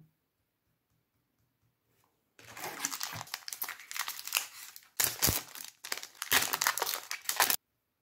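Foil Pokémon booster pack wrapper crinkling as it is torn open by hand. The sound starts about two and a half seconds in and comes in uneven bursts, the sharpest about five seconds in, stopping just before the end.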